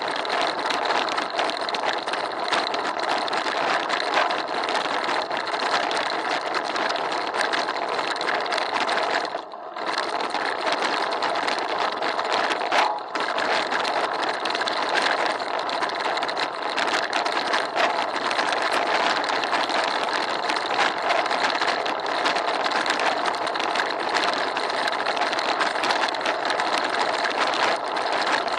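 Continuous rapid rattling and buzzing from a bicycle rolling over cobblestone paving, picked up through a handlebar-mounted action camera's waterproof housing as the road shakes it. The noise drops away briefly about nine and a half seconds in.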